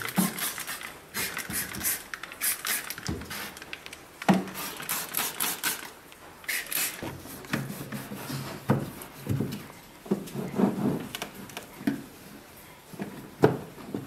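A trigger spray bottle of vinegar solution spritzing in several short hisses, then a cloth rubbing and wiping the plastic walls and shelf inside a refrigerator, with a few sharp knocks against the plastic. The sharpest knock comes near the end.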